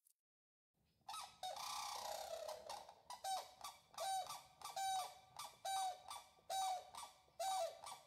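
Grey crowned cranes calling: a jumbled stretch of calls starting about a second in, then a steady run of short repeated calls about one a second, each falling in pitch at the end.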